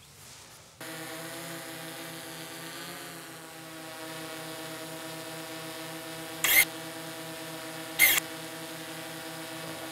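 Close-up DJI quadcopter drone hovering, its propellers making a steady multi-tone hum that wavers slightly in pitch about three seconds in. Two short, sharp clicks cut through it, the first about six and a half seconds in and the second about a second and a half later.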